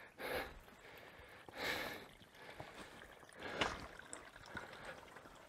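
Footsteps walking through a shallow creek bed, three louder steps among softer ones, with faint water sound.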